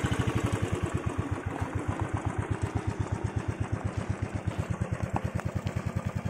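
Motorcycle engine running at low speed as the bike crawls over a loose gravel road, with a steady, even exhaust beat of about ten pulses a second that grows slightly quieter as the bike pulls ahead.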